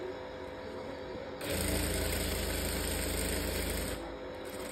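Industrial sewing machine running a short seam for about two and a half seconds, starting about a second and a half in and stopping suddenly, as a folded fabric edge is stitched down.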